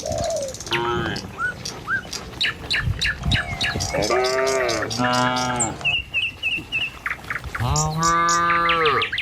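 Cattle mooing: a couple of shorter moos a few seconds in and one long, strong moo near the end, with songbirds chirping rapidly throughout.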